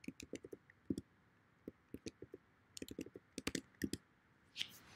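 Typing on a computer keyboard: irregular clusters of light key clicks, some stronger taps about a second in and about three and a half seconds in.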